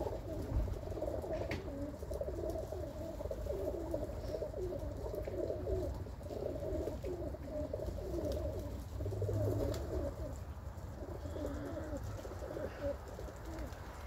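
Domestic pigeons cooing, several birds' coos overlapping continuously, over a low rumble.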